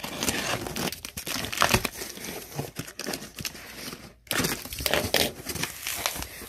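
Cardboard box being opened and its packaging handled: irregular crinkling, rustling and crackling, with a brief pause about four seconds in.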